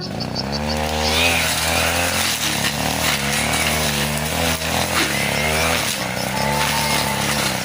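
Two-stroke 40cc brush cutter running and cutting thick grass, its revs rising and falling repeatedly as the blade takes the load.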